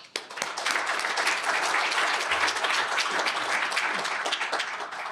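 Audience applauding: many hands clapping, building within the first half second, holding steady, then dying away near the end.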